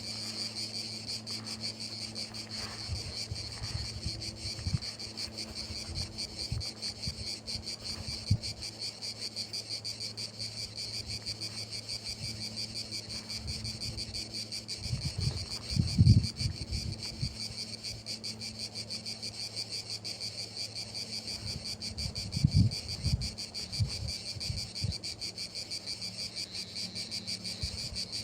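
Crickets chirping steadily in a fast, continuous trill. A few low thumps break in, the loudest about halfway through and several more later on.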